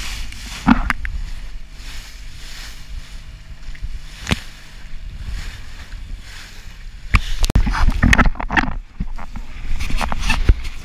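Rigid inflatable boat running fast over choppy water: the outboard engine's drone under wind buffeting and rushing spray, with the hull slapping on waves about a second in and near four seconds, and a run of heavy thumps from about seven to nine seconds.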